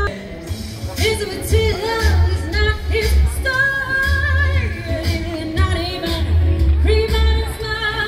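Pop-style song with a singing voice over a heavy, regular bass beat.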